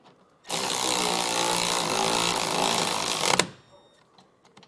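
Cordless electric ratchet running for about three seconds, driving a crossmember bolt with a 14 mm socket to tighten it, then stopping with a sharp click. A few faint metal clicks follow.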